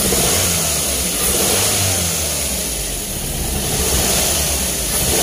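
Daihatsu Gran Max four-cylinder petrol engine running with an uneven, shaking drone: it is misfiring on one cylinder because its number 4 ignition coil has failed.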